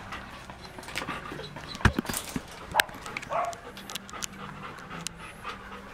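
Month-old Shih Tzu puppy panting and moving about on a blanket-covered wire cage. Scattered clicks, and two sharp knocks about two and three seconds in, with a short high sound just after.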